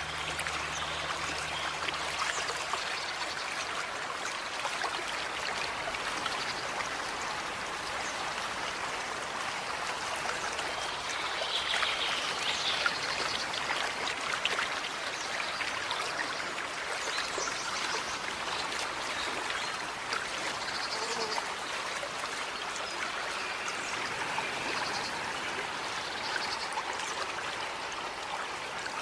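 Small forest stream flowing steadily, a continuous trickling babble of running water, with faint bird chirps now and then.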